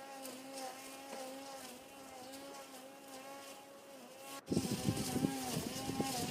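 Cordless electric grass trimmer with nylon blades running with a steady motor hum whose pitch wavers slightly as it cuts grass. About four and a half seconds in the sound suddenly gets louder, with a flurry of short ticks and knocks over the hum.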